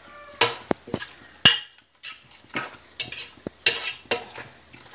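Wooden spatula stirring chicken pieces through thick masala in a non-stick pot: irregular scrapes and knocks against the pot, the loudest about one and a half seconds in, with a short lull just after it.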